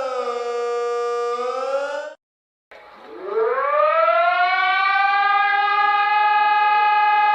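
Two emergency alarm siren sounds. First, a pitched tone with many overtones slides down in pitch, holds, begins to rise again and cuts off suddenly about two seconds in. After a brief silence a second siren winds up from a low pitch to a steady wail, which it holds.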